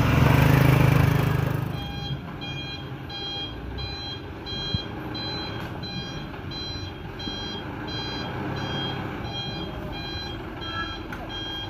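A truck engine runs loud and low for the first two seconds. Then a truck's reversing alarm beeps quickly and evenly, about three short high beeps a second, over the low rumble of its engine as it backs up.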